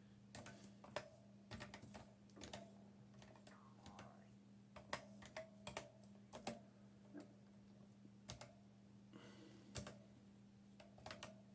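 Keys tapped on a ZX Spectrum's keyboard as an IP address is typed in: faint, irregular clicks in short runs, with a pause a little past the middle, over a faint steady hum.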